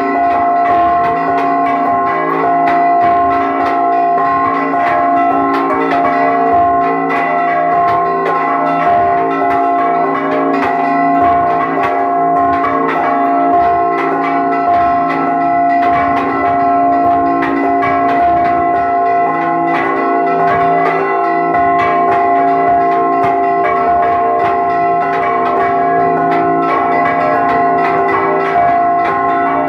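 Several church bells rung in a Mexican repique, struck by their clappers worked on ropes by ringers in the belfry: a rapid, unbroken run of strikes over overlapping ringing tones, loud and close.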